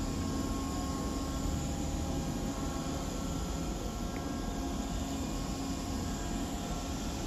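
Steady low buzzing drone with a few faint held tones above it.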